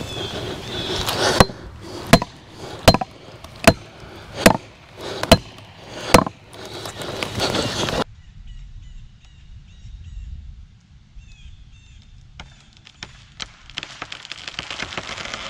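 Felling wedges being hammered into the back cut of a tree: seven sharp strikes, roughly one every 0.8 seconds. Then the sound drops suddenly to quiet with faint bird chirps, and a few light knocks near the end.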